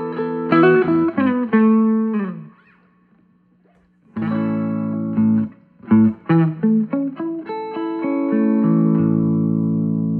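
Electric guitar with PAF-style humbuckers played clean through a 5-watt 6V6/12AX7 tube amp into a 10-inch speaker. Chords and picked single notes ring and fade out about two and a half seconds in, then after a short pause more chords and picked notes follow, ending in a held chord.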